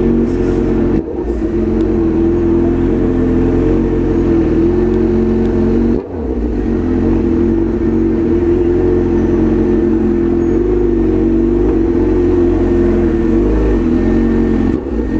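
Honda CB1000 motorcycle's inline-four engine running steadily while being ridden, its pitch wavering slightly with the throttle. The sound dips briefly about a second in and again about six seconds in.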